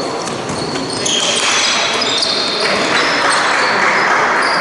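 Sounds of an indoor basketball game in a sports hall: the ball bouncing, short high squeaks, and a wash of noise that swells from about a second in, all echoing in the hall.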